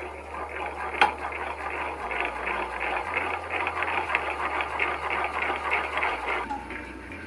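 Rapid, continuous metallic rattling from a Honda Grom crankshaft bearing being spun by hand, with one sharp click about a second in. The rattle stops about six and a half seconds in. The roughness is the sign of a worn, damaged bearing.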